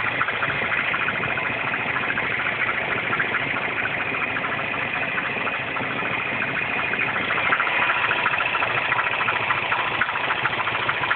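R56 Mini Cooper S 1.6-litre turbocharged four-cylinder idling cold, with a dense, fast ticking rattle over the running engine. This is the cold-engine noise that remains after the timing chain tensioner was changed.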